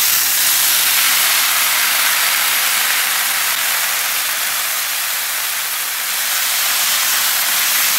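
Thawed frozen corn sizzling with a loud, steady hiss on a hot flat-top griddle among onion and peppers: the wet kernels steaming on the steel as they hit the surface.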